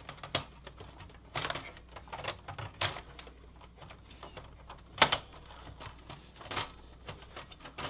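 Scattered clicks and knocks of plastic and metal computer parts being handled and fitted inside a desktop case, cables and a drive being seated, with the sharpest click about five seconds in.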